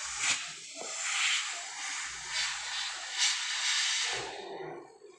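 Pressurised gas hissing out of a refrigerator's pipework in a steady, wavering stream, dying away about four seconds in.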